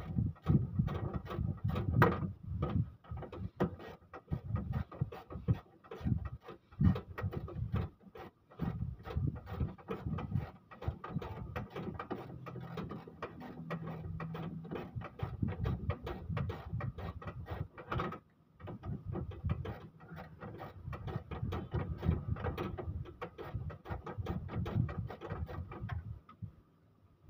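Irregular metallic clicks and knocks from hand work at the front of an engine during timing-belt removal, with a short pause about two-thirds of the way through.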